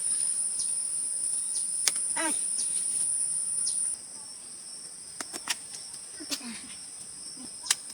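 Insects droning with a steady high-pitched buzz, which drops noticeably in level about halfway through. Scattered sharp clicks and a short call sound over it.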